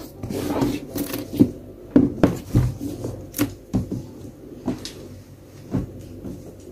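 An iPad in a folio case being handled and slid about on top of its cardboard box: a run of light knocks, taps and rubs, the loudest a few sharp knocks about two to three and a half seconds in.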